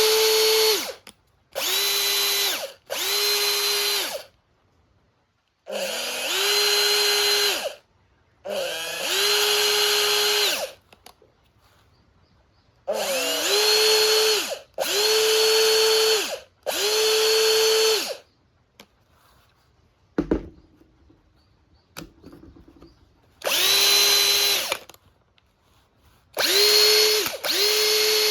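Makita DF458D 18V cordless driver drill's brushed motor, freshly overhauled with new carbon brushes, run in about ten short bursts of one to two seconds with pauses between. It settles to a steady whine each time, and several runs rise in pitch at the start as the trigger is squeezed in. There is a single sharp knock about twenty seconds in.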